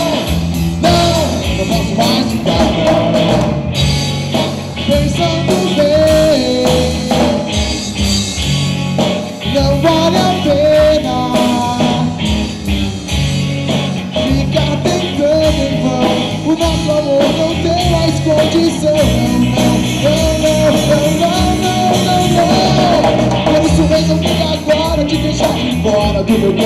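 Live rock band playing: drum kit with cymbals, electric guitars and bass over a steady beat, with a wavering melodic lead line on top.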